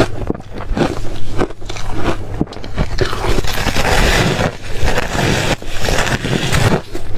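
Close-miked biting and chewing of reshaved refrigerator ice: a run of loud, crisp crunches with scraping, densest for a couple of seconds around the middle.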